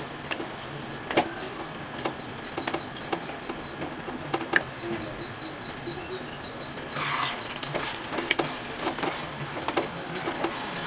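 A spoon stirring chunks of eggplant in tomato masala in an unglazed clay pot, with irregular scrapes and knocks against the pot's clay sides. A brief louder rustle about seven seconds in, when the coriander goes in and is stirred through.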